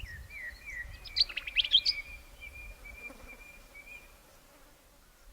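Scarlet-chested parrot twittering: a soft warbling run of notes, a quick cluster of sharper, higher chirps about a second in, then a thin drawn-out whistle that fades out after about four seconds.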